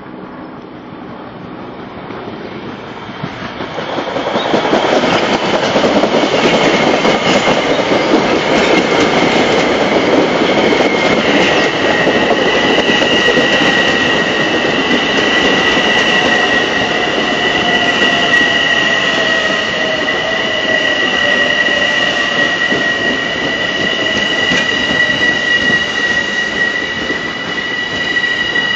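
A Long Island Rail Road M7 electric multiple-unit train pulling into the station. Its wheel-and-rail noise swells to loud about four seconds in. A steady high-pitched squeal holds as it brakes, and a lower whine falls in pitch as the train slows.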